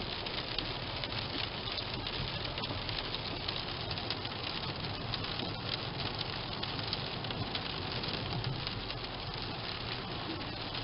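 Rain ticking on a car's windshield and roof over a steady low hum of engine and road noise, heard from inside the moving car.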